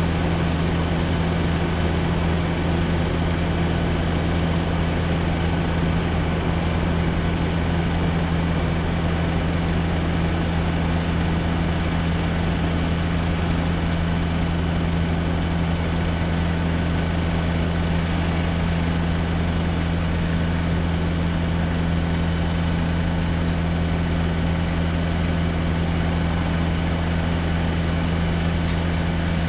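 Nissan truck's diesel engine running at a steady idle, powering the Socage boom lift's hydraulics while the platform moves: a low, even drone.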